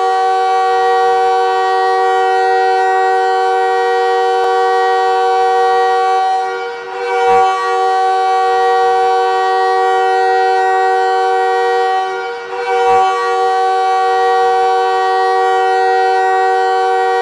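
Montreal Canadiens hockey win horn blaring a steady chord of several pitches in long blasts, broken by two short gaps about seven and twelve and a half seconds in.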